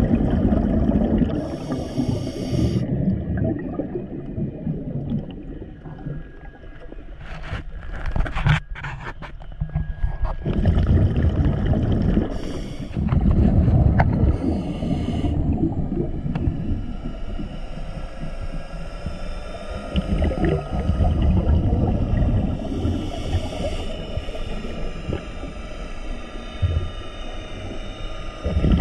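Scuba diver breathing through a regulator underwater: a short hiss of inhalation followed by a burst of exhaled bubbles, repeating every few seconds.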